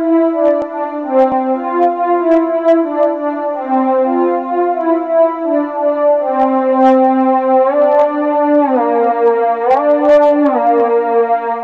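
Korg microKORG synthesizer played on its keys: held notes and chords in a buzzy, overtone-rich tone, with pitches sliding up and down about eight to ten seconds in. Light clicks from the keys run through it.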